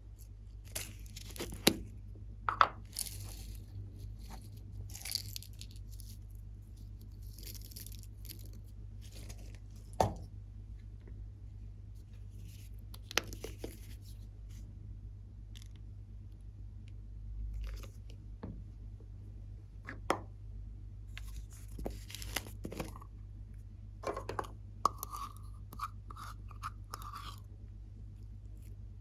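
Glossy slime being squished and mixed by hand, giving sticky crackles, pops and sharp clicks in irregular bursts, with crunching. A run of short squeaky tones comes near the end, over a steady low hum.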